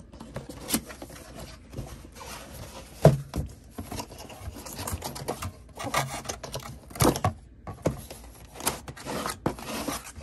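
Cardboard box being opened by hand, its flaps and sides rubbing and scraping, as a clear plastic tray is slid out. Irregular knocks run through it, with a louder thump about three seconds in.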